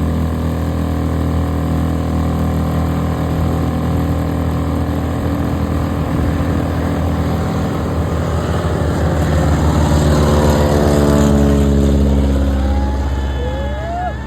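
Motorboat engine running hard as the boat speeds past. It grows louder, then its pitch drops steadily as it goes by. Short high gliding tones sound near the end.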